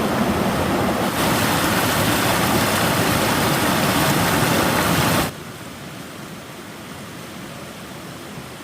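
Waterfall rushing: a loud, steady wash of falling water that drops suddenly to a quieter, steady wash about five seconds in.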